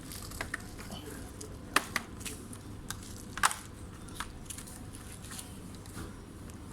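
A few irregular sharp clicks and taps from hands working on a laptop, over a steady low hum. The loudest clicks come at about two and three and a half seconds in.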